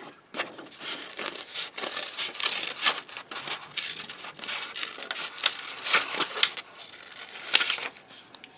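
Scissors snipping a circle out of paper, a run of irregular crisp cuts with paper rustling between them.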